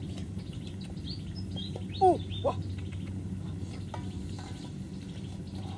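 Birds chirping, with two louder swooping notes about two seconds in, over a steady low hum.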